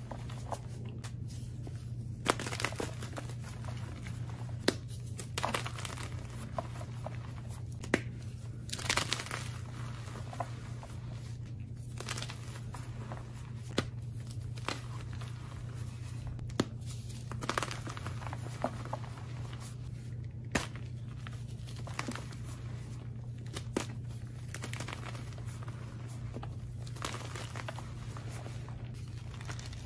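Hands crushing and crumbling blocks of reformed gym chalk: irregular soft crunches and crackles, with a few sharper, louder cracks, over a steady low hum.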